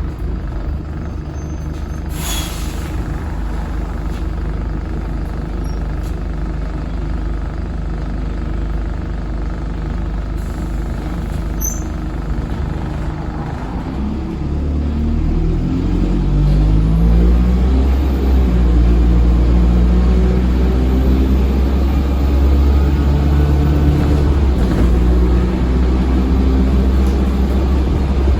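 Dennis Dart SLF bus with an Allison 2100 automatic gearbox, engine running steadily at low revs, with a short hiss about two seconds in. About halfway through the bus pulls away: the engine note grows louder and climbs in repeated steps as the gearbox shifts up.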